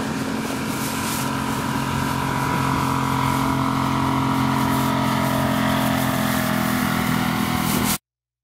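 Outboard motor on an inflatable boat running steadily at speed as the boat passes, growing a little louder over the first few seconds. It cuts off suddenly about eight seconds in.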